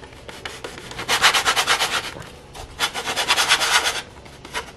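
Plastic pie crust cutter being twisted and ground down through pie dough against a wooden board: two rasping bursts of about a second each, made of rapid, even scraping strokes.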